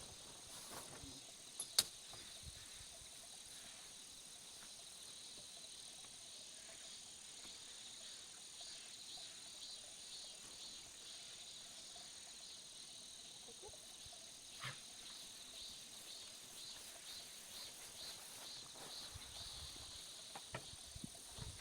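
Insects chirring in a faint, steady, high-pitched chorus with a pulsing trill running through it. A single sharp click comes about two seconds in.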